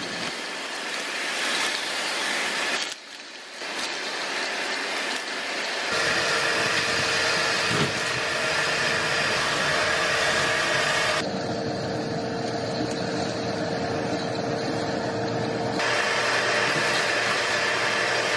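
Shop vacuum running and sucking up broken tile and drywall debris, a steady whooshing whine with a low hum, its sound changing abruptly at several cuts and dropping away briefly about three seconds in.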